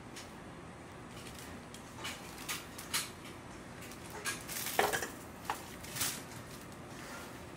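Kitchen utensils and bakeware being handled: a scattered series of about seven short clinks and knocks, the loudest just past the middle.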